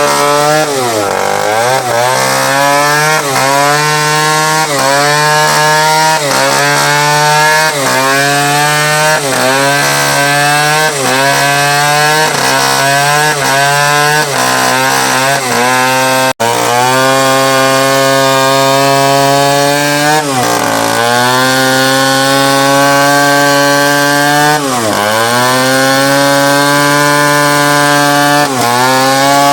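Chainsaw cutting through teak wood at full throttle, its engine pitch dipping and recovering as the chain bogs down in the cut, with quick regular wobbles in pitch through the first half. The sound breaks off for an instant about halfway through, then carries on.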